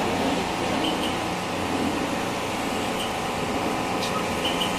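Steady mechanical whirring background noise, like a fan running. There is a faint click about four seconds in as parts are handled inside the door's window-regulator opening.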